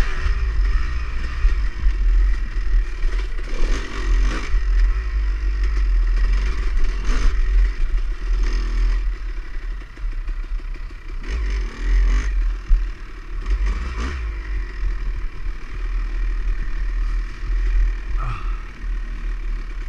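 Dirt bike engine revving up and down as it is ridden, its pitch climbing several times, under heavy wind rumble on the microphone.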